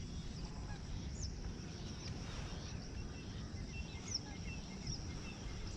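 Wetland bird ambience: several short, high bird chirps, most dropping in pitch, over a steady high insect drone and a low rumble.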